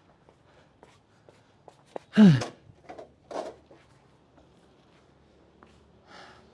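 A man's short, loud vocal burst about two seconds in, falling in pitch, like a sneeze or grunt, followed a second later by a breathy sound. Faint footsteps and light knocks sound around it.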